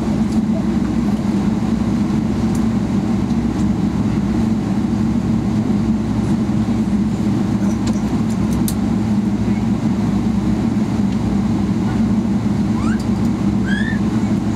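Steady low engine drone at an even level, with a few short, high chirps near the end.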